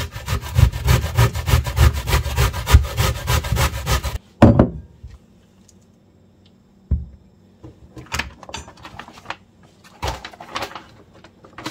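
A zucchini rubbed fast up and down a metal box grater, about six scraping strokes a second, stopping abruptly about four seconds in. A knock follows, then scattered short clatters and rustles as the grater is lifted and the shreds are handled.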